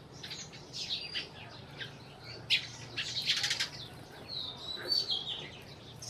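Sparrows chirping in short, repeated high notes, with a busy run of overlapping chirps in the middle and a few brief gliding calls near the end.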